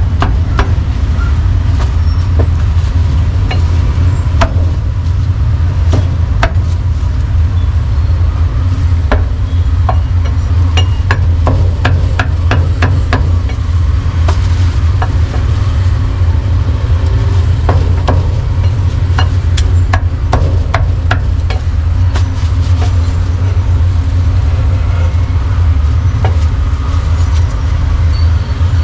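Meat cleaver chopping roast duck on a thick round wooden chopping block: irregular sharp knocks, some in quick runs, over a steady loud low hum.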